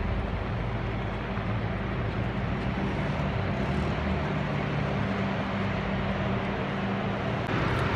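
A steady mechanical hum with a constant rushing noise, unchanging throughout.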